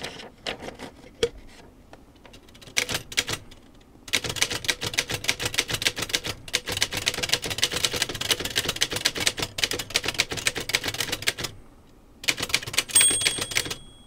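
Remington No. 10 manual typewriter being typed on: a few separate keystrokes, then a long fast run of keystrokes at several a second, a short pause, and another quick burst. Its bell rings once near the end.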